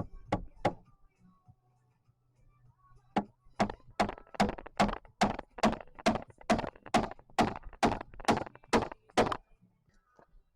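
Hammer blows on wood: two quick strikes, then after a pause a steady run of about fifteen strikes, a little over two a second, that stops about a second before the end.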